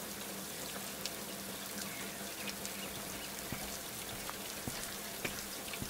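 Steady hiss with scattered faint crackles and a low steady hum underneath.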